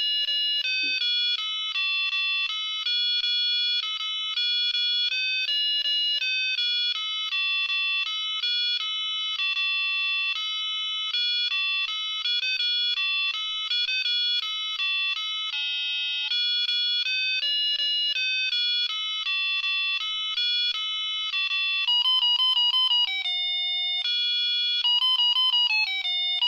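Tiny piezo speaker on a Vogurtime LED star kit playing a beeping electronic tune note by note, its built-in microcontroller music mode. About four-fifths of the way through, the notes break into fast trills.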